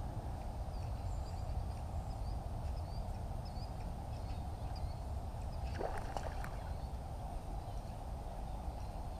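Quiet river ambience heard from a kayak: a steady low rumble with faint short high chirps in the first few seconds, and a brief rasping noise about six seconds in.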